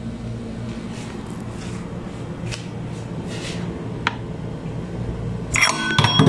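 Steady low hum with faint handling noises and one click, then near the end a stainless steel colander clattering and ringing as it is set over a bowl of soaking chicken wings in a metal sink.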